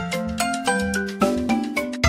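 Background music: a bright mallet-percussion tune of quick struck notes, several a second, over steady low notes.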